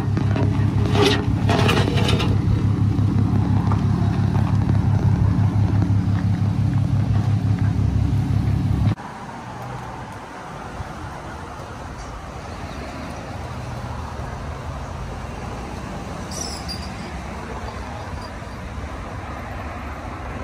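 Chevrolet 454 SS pickup's 7.4-litre big-block V8 idling steadily through a full 3-inch exhaust with Magnaflow bullet mufflers, a deep even exhaust note. It cuts off suddenly about nine seconds in, leaving quieter background noise.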